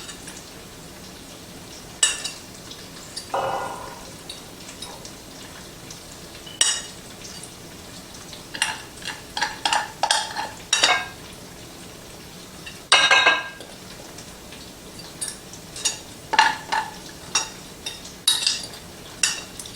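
A serving utensil scraping and clinking against the rice pot and bowls while cooked rice is scooped out, in short irregular knocks with a longer scrape about two-thirds of the way through.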